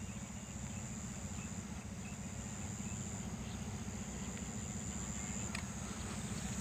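Quiet field ambience: a thin, high-pitched insect trill holding steady with a few short breaks, over a low steady hum.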